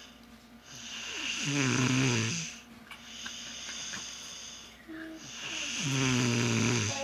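A sleeping person snoring deeply: two long, rattling snores about four seconds apart, with breathy rushes of air between them.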